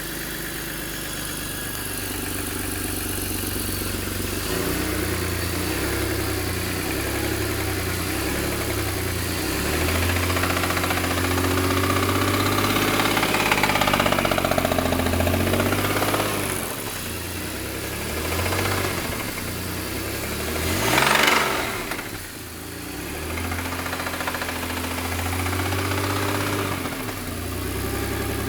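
An engine running, its pitch rising and falling several times as it is revved, loudest about 21 seconds in.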